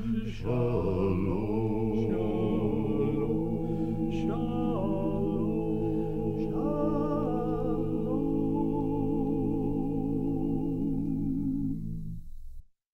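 Male vocal quartet singing the drawn-out closing chord of the song, voices holding with vibrato and a few changes of note, then fading and stopping shortly before the end.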